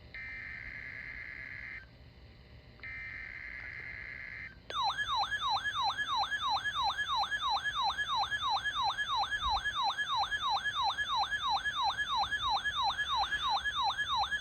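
Emergency Alert System data header: two harsh digital bursts, each under two seconds with a short pause between. About a third of the way in, a loud siren-like alert tone starts, sweeping up and down about three times a second, ahead of the next alert message.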